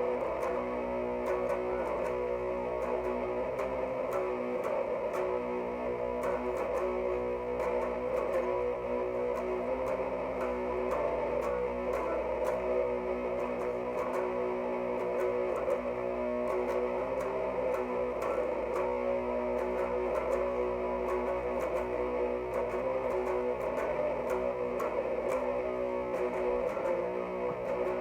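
Overdriven electric guitar playing a doom metal riff of held, ringing chords and notes: a Jackson SCX 3H through an Orange Crush Mini 3-watt amp, boosted by a Boss ODB-3 overdrive pedal.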